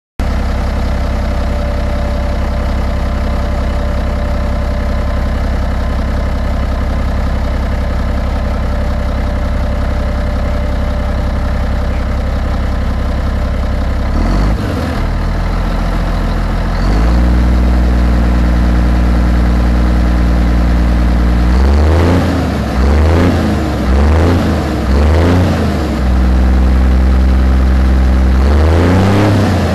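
Scania 124L 440 truck's straight-six diesel engine idling steadily, then raised and held at higher revs about halfway through, then given three short blips of the throttle in quick succession, and revved again near the end.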